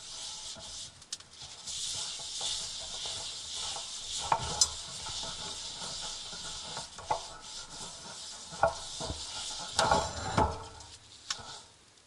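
Paper towel rubbing olive oil around a hot cast iron pan to re-season it, a steady hiss of wiping and sizzling oil. A few light knocks of the pan, with a louder clatter about ten seconds in.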